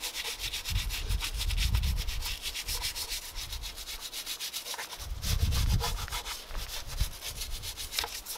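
Small stiff-bristled detailing brush (Meguiar's spot cleaning brush) scrubbing fast back and forth over a soapy engine top around the oil filler cap, a quick scratchy brushing. Low rumbles come and go twice under it.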